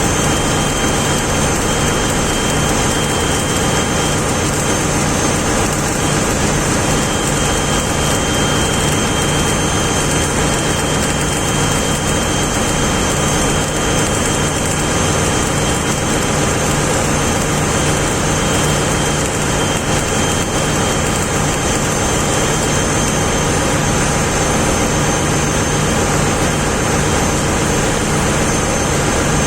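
Loud, steady drone of shipboard machinery running without a break, with a low hum and a thin high whine held throughout.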